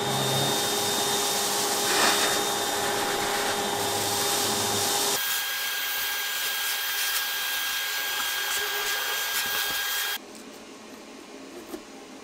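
Vacuum running, its clear flexible hose sucking up polycarbonate chips from a CNC router bed. Its tone shifts about five seconds in, and it stops abruptly about ten seconds in, leaving quiet room noise with a small click near the end.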